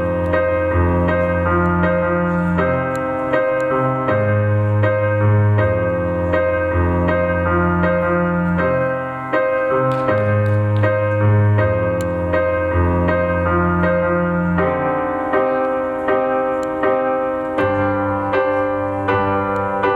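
Piano music playing, a repeating pattern of notes over held bass notes, with a brief dip in loudness about nine seconds in.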